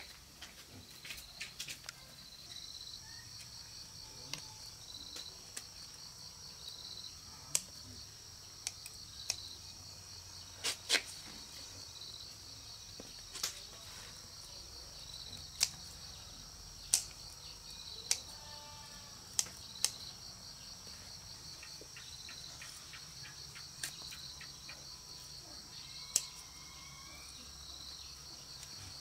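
Steady high-pitched insect chorus with a fast pulsing trill, over which come about a dozen sharp clicks or knocks at irregular intervals of a second or more.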